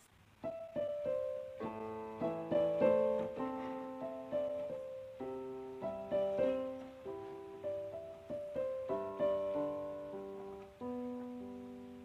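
Background piano music: a slow melody of struck notes and chords, each dying away, beginning about half a second in.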